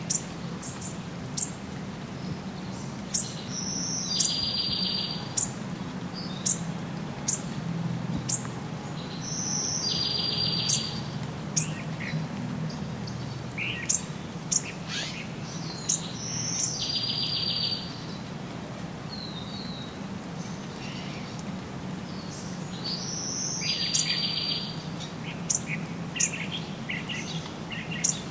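Wild birds calling in forest. One call repeats every six or seven seconds: a short high note followed by a buzzy trill about a second long. Many quick sharp chirps fall between the calls, over a steady low rumble.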